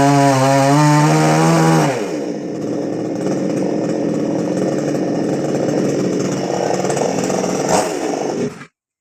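Chainsaw running at high revs, then dropping about two seconds in to a rougher, lower note; it cuts off abruptly near the end.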